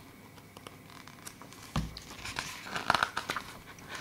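Pages of a glossy paper booklet being turned and handled: a thump about two seconds in, then a short rustle of paper with a few crisp clicks.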